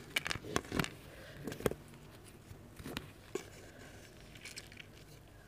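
A chapati torn by hand close to the microphone: a quick run of short, dry crackles in the first couple of seconds. After that come a few soft ticks as the piece of roti scoops up okra from the plate.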